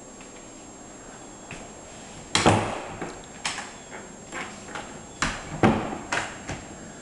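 A door knocking shut about two seconds in, then a run of footsteps on a wooden floor, about two a second.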